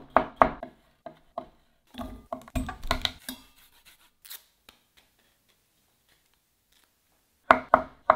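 Chef's knife chopping cucumber on a plastic cutting board in quick strokes. About two seconds in, garlic is rasped on a fine hand grater, and a few more knife strokes through avocado follow near the end.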